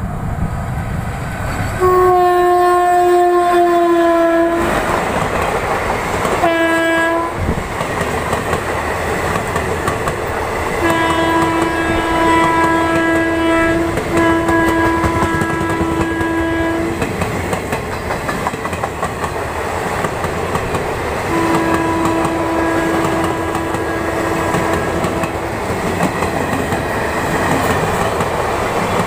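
WAP-4 electric locomotive's air horn sounding five blasts over the clatter and rumble of the express running at high speed. Four blasts last about three to four seconds each and one is short. The first dips slightly in pitch as it sounds.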